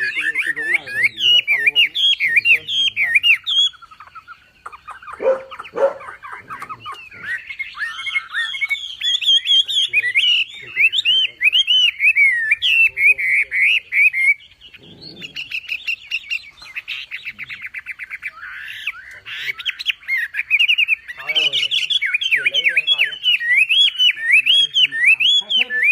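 A wambi songbird singing continuously and loudly: fast runs of twittering, warbled whistles broken now and then by lower, harsher chattering calls.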